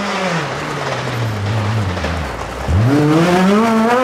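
Off-road rally buggy's engine coming off the throttle, its revs falling for about two seconds as the car slows, then revving hard and loud about two and a half seconds in as it accelerates away.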